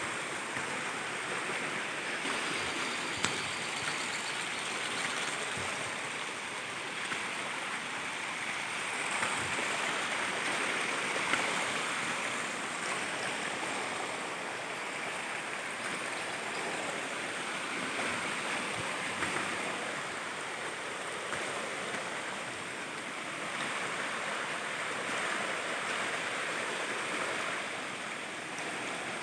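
Waterfall water rushing and splashing in a steady, even roar.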